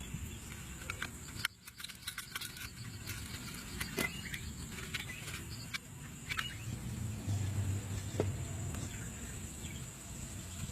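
Outdoor ambience: a steady high-pitched insect drone over a low rumble, with scattered sharp clicks.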